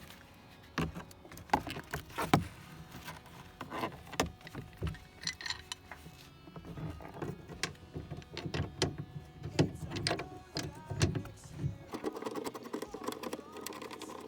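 Irregular clicks and knocks of tools and car parts being handled while a seat belt is fitted, with a short whirring near the end.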